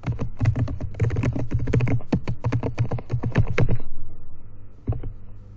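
Typing on a computer keyboard: a quick run of keystrokes for about four seconds, then a pause and a couple more keys near the end.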